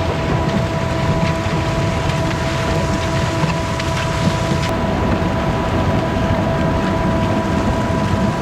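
Concrete mixer truck's engine running steadily: a low rumble with a constant whine over it.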